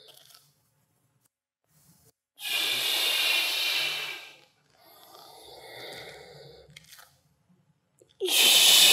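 A man breathing hard and deliberately through a push-up plank exercise, timed to each change of hand: a loud, long breath about two and a half seconds in, a quieter one about five seconds in, and another loud one near the end.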